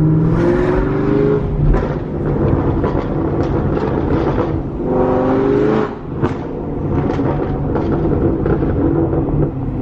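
2017 Camaro SS's 6.2-litre V8, breathing through catless Kooks long-tube headers on a tune, pulling hard twice with its exhaust note rising each time. Between and after the pulls the exhaust crackles and pops on lift-off.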